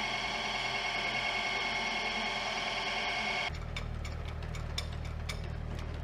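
Electric pipe threading machine running with a steady whine. About three and a half seconds in the sound cuts to a low hum with a run of sharp clicks, two or three a second.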